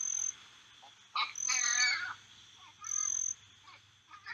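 Rainforest ambience: an insect trills in short, high, steady bursts about every second and a half. A wavering animal call comes about one and a half seconds in.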